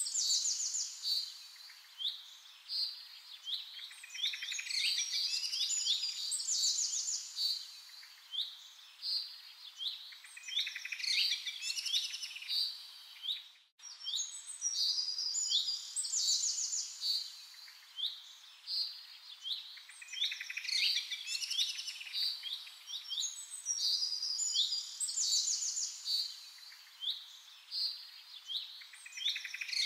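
Songbirds chirping and trilling in a continuous chorus of short, rapid, high notes. The sound cuts out for an instant about halfway through.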